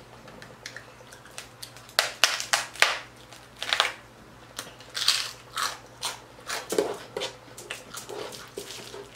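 Crunching bites and chewing of a crispy pork rind (chicharrón) tostada, close to the microphone: a run of sharp, crackling crunches, the loudest about two to three seconds in.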